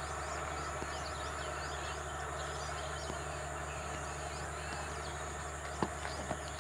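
Outdoor ambience: many small birds chirping over a steady low hum, with a few faint knocks near the end.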